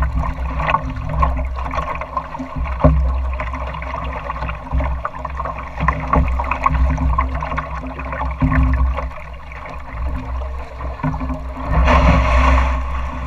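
Water lapping and splashing against the hull of a small sailing dory, a busy sloshing with many small slaps over a steady low rumble. About twelve seconds in, a louder splash as the water washes up near the shore.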